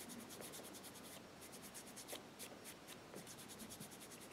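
Sponge-tip eyeshadow-style applicator rubbed quickly back and forth over a gel-polished nail tip, working in gold chrome pigment powder. The strokes are faint and rapid, about ten a second, and thin out for a moment in the middle.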